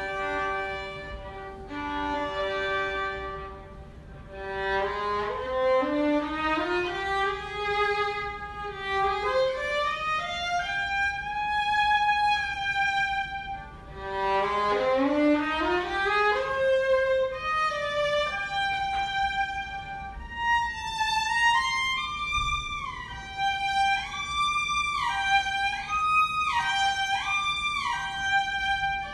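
Violin music: a single melodic line of held notes, climbing in stepwise runs twice and moving in quicker leaps near the end.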